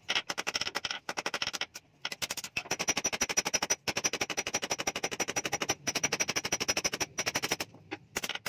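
Hand hammer beating a red-hot steel knife blade on a steel post anvil: a fast, even run of metal-on-metal blows with a high ring, broken by a few short pauses.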